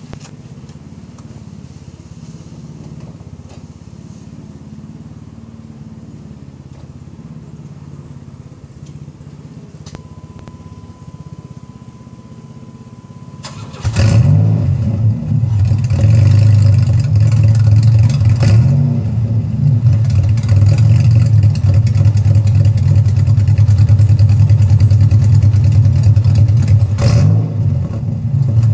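A 1989 Chevrolet Cavalier Z24's 2.8-litre V6 starts about 14 seconds in and settles into a loud, steady idle through an exhaust straight-piped to the middle of the car, its rear resonator section removed. Before the start there is only a faint low hum and, for a few seconds, a thin steady tone.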